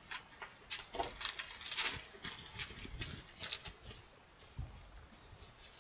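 Plastic shrink-wrap on a board game box crinkling and crackling in irregular bursts as it is picked at and peeled by hand, dying down near the end.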